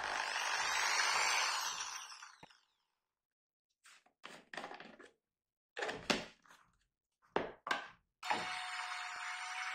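Handheld electric drill with a bottle-cap cutter disc in the chuck, run briefly: it starts suddenly, then winds down and fades out after about two seconds. Then a few short knocks and clatters of a plastic jar and its screw lid being handled, and about eight seconds in the drill starts again and runs steadily with a steady whine.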